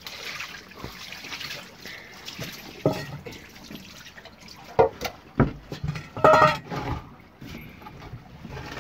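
Water poured from a metal pot splashes onto a wet boat deck, with a few short knocks and a brief vocal sound about six seconds in.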